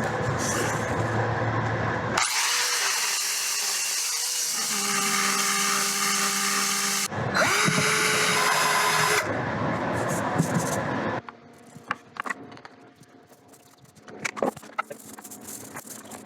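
Power drill drilling out old fastener holes in a fiberglass cabin top, run in two long bursts. The motor rises in pitch as it spins up each time. After about eleven seconds it stops, leaving light clicks and knocks.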